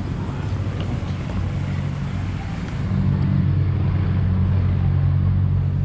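Road traffic noise from a busy street: a motor vehicle's engine hums low and steady and grows louder about three seconds in.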